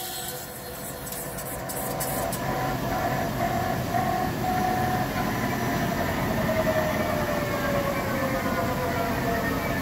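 Hankook Protec 9-NC CNC lathe running. A few sharp chip clicks in the first couple of seconds end the cut. The spindle then turns the heavy steel workpiece with a steady hum, its drive whine slowly falling in pitch as the spindle slows.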